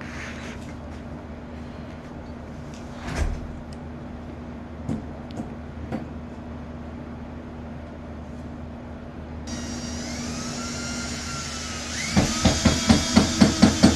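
A few light knocks of wooden cabinet framework being fitted by hand, over a low steady hum. About two-thirds of the way in, background music starts, and in the last two seconds it carries a loud, fast, steady beat.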